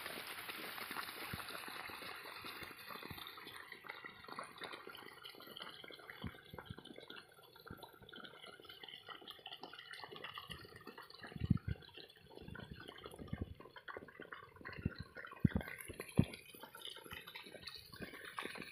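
Irrigation water trickling and splashing through a flooded crop field, with a few short knocks around the middle.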